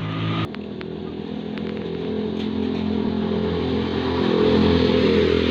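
Motorcycle engine running close by. There are a few clicks about half a second in, and then the engine grows louder and rises over the next few seconds.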